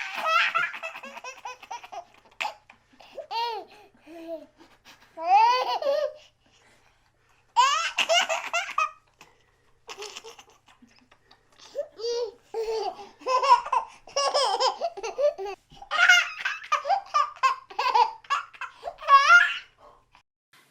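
A baby laughing in repeated bursts of high-pitched giggles and belly laughs, with short pauses between fits.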